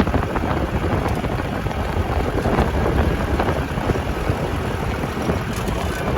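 Strong sandstorm wind blowing across the microphone: a loud, steady, rumbling rush of noise with no separate events.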